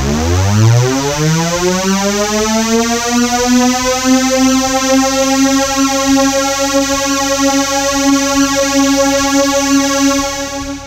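Synthesizer tone that glides up in pitch from a deep rumble over about three seconds, then holds one steady note until it stops just before the end.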